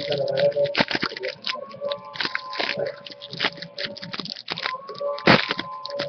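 Trading cards and foil pack wrappers being handled: a dense run of irregular crinkling and sharp flicking clicks as cards are shuffled through.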